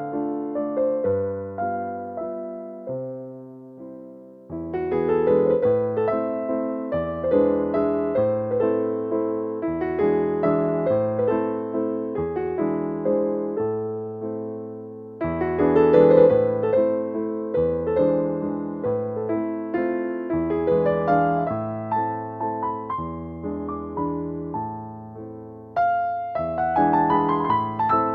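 Background music: gentle solo piano playing chords over a bass line, notes struck and left to fade, with a soft pause about four seconds in.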